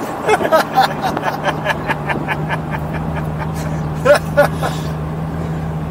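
Straight-piped Lamborghini Gallardo 5.0 V10 running steadily, with a quick run of exhaust crackles and pops in the first couple of seconds. Two short loud calls come about four seconds in.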